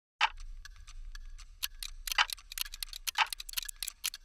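Clock ticking: a run of sharp ticks with a few louder clicks, coming thicker and faster toward the end, over a faint low hum.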